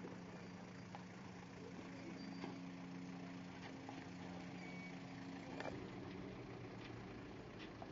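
A faint engine running steadily at idle, its even hum fading out about six seconds in, with a few light clicks over it.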